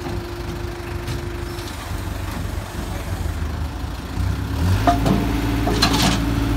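Flatbed truck engine running to power its hydraulic loader crane: a steady low hum that grows louder, with a steady whining tone, about four seconds in as the crane is worked. A couple of short metal clanks come in the second half.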